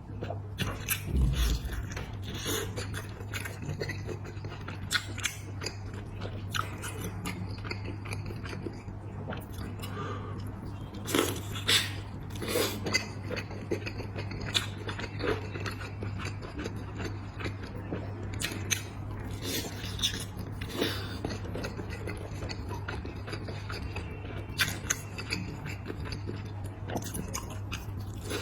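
A person biting and chewing food close to the microphone, with irregular crunchy, crackling bites throughout and a few louder crunches about halfway through, over a steady low hum.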